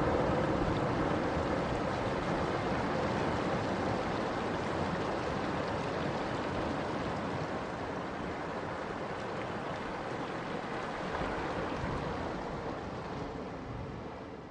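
Steady rushing outdoor background noise with no distinct events, slowly fading near the end.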